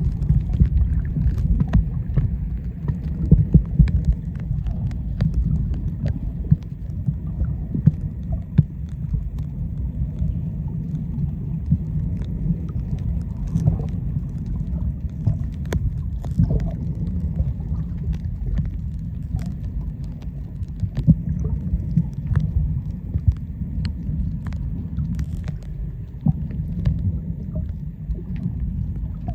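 Muffled underwater rumble and water movement picked up by a submerged camera while snorkeling, a steady low noise dotted with faint small clicks and ticks.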